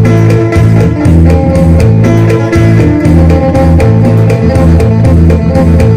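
Electric guitar played in the style of an Isan phin: a plucked melody over a repeating low drone, in A minor.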